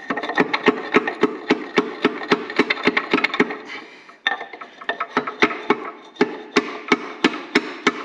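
Hammer taps, about three or four a second with a short pause midway, driving a tight piston out of its cylinder bore in a Karrier K6 engine block.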